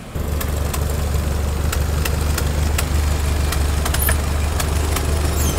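Steady low engine and road drone heard inside a moving vehicle, with a few faint clicks.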